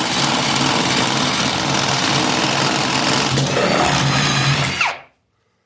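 Ridgid Gen 5X brushless Stealth Force hydraulic pulse driver boring a 3/4-inch Spyder power bit through a pressure-treated 4x4, running steadily and cutting off suddenly near the end.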